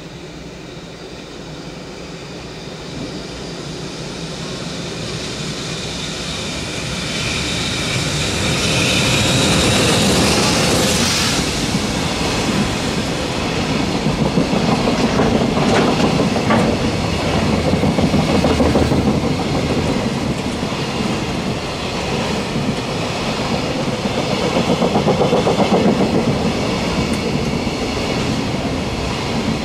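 Freight train with container wagons approaching from a tunnel and passing below: its noise builds up over the first ten seconds, peaking with a high hiss as the front of the train passes. The wagons' wheels then keep up a rhythmic clickety-clack over the rail joints.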